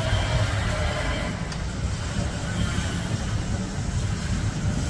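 Steady outdoor street noise: a continuous low rumble with an even hiss over it, like road traffic heard in heavy rain.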